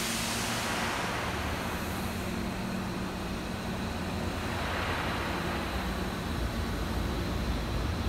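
Hankyu electric commuter train running through a covered station platform: a steady low rumble with a faint motor hum, building in the second half as the train moves past.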